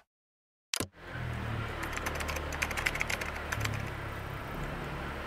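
A quick run of computer-keyboard typing clicks over a steady low rumble of riding on a motorbike through a street, after a second of silence.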